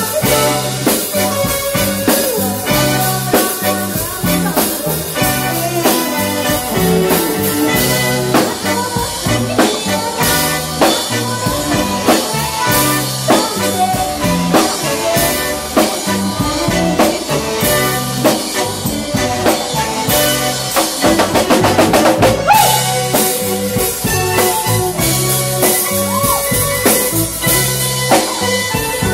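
Live band playing a Khmer Madison line-dance song: drum kit keeping a steady beat over a repeating bass-guitar line, with a female singer on the microphone. A fast drum roll comes about three-quarters of the way through.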